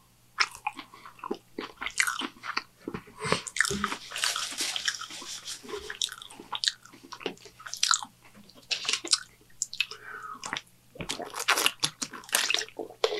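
Close-miked chewing of a fried onion ring: many irregular wet mouth clicks and crunches. Near the end, a drink from a plastic water bottle.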